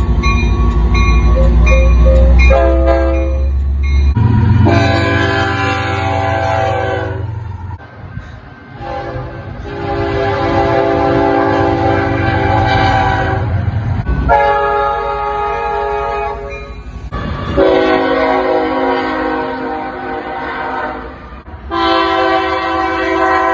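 Locomotive air horn sounding a series of long blasts, each a chord of several steady tones lasting a few seconds, with short gaps between them. A low engine rumble sits under the first blast.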